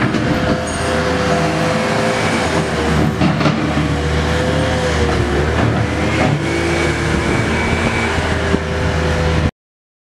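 A heavy machine's engine runs steadily, its pitch dipping and coming back up about five and a half seconds in. The sound cuts off suddenly near the end.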